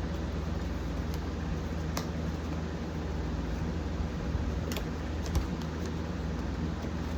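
Steady hum of a fan and air conditioner, with a few sharp clicks and taps as a small cardboard blind box is worked open by hand.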